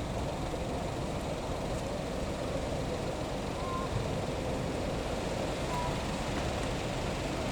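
Fire truck engines running in a steady low rumble, with no sirens sounding.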